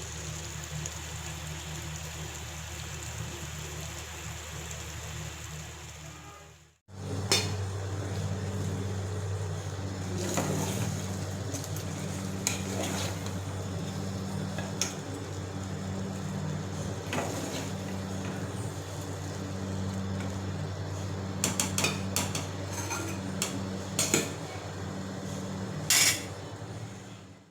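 Metal spoon stirring in a cooking pan, with scattered clinks and scrapes against the pan, over a steady low hum. The sound cuts out briefly about seven seconds in, then the clinking resumes.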